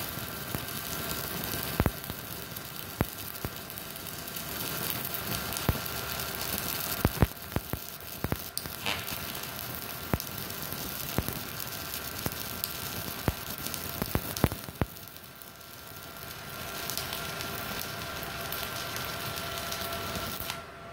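Stick-welding arc from a 2 mm electrode at about 60–70 amps on a MultiPro Solid 125 A-ST IGBT inverter welder: a steady crackling sizzle with scattered sharp pops. The arc weakens briefly about three-quarters of the way through, then picks up again.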